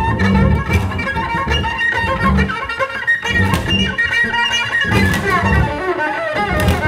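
Two acoustic double basses improvising together. One is bowed and the other is played by hand, giving held low notes under scraping upper sounds, with a few sharp percussive string attacks.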